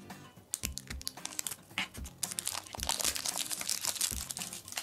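A printed wrapper being peeled and torn off a plastic surprise egg: a run of crinkling and tearing crackles, sparse at first, then denser and louder from a little past two seconds in.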